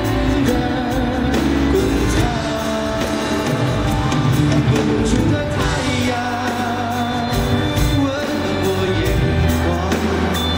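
Live pop-rock concert music: a male singer sings into a microphone over an amplified band with a steady beat, heard from far back in a large arena hall.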